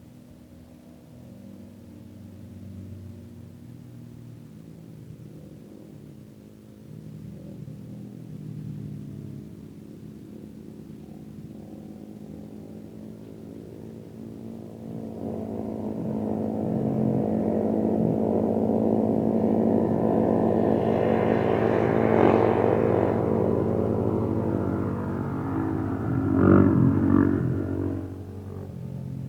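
Off-road vehicle engine approaching: faint at first, it grows much louder from about halfway through, is loudest near the end, then drops off sharply.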